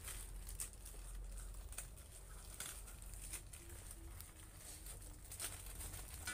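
Scattered light taps and rustles over a low steady hum, from people moving about and handling a wooden coffin on ground covered in dry leaves.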